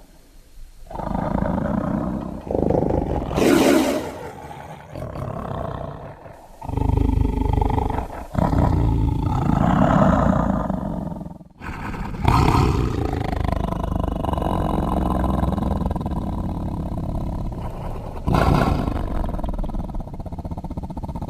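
Sound-designed dinosaur roars for a Kasai rex: a run of several long, deep roars and growls, one after another with short breaks between them.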